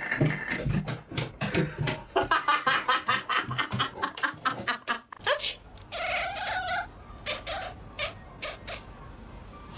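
A cat vocalising: a fast run of short cries for the first few seconds, then one longer meow about halfway through.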